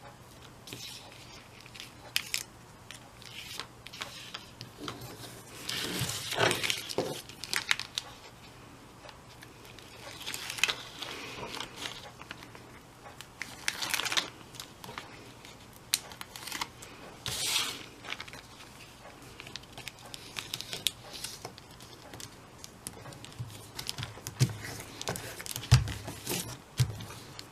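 Cardstock and a clear plastic sheet rustling and crinkling as they are handled and pressed together with two-sided tape, in irregular bursts with small taps and clicks.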